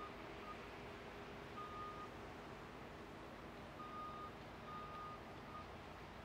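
Steady low hum of a slow-moving EMD GP38-2 diesel locomotive moving a covered hopper car, with several short, high electronic beeps at uneven intervals.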